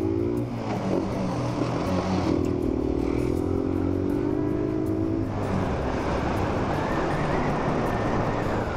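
Motorcycle engine pulling away, its pitch rising near the start and then holding steady for a few seconds. From about halfway a steady rushing noise of wind at riding speed takes over.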